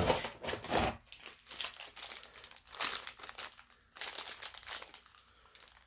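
Plastic toy packaging crinkling in irregular bursts as it is handled and unpacked.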